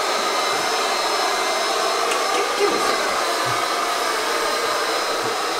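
Handheld hair dryer running steadily: an even rush of blown air with a thin high whine from the motor.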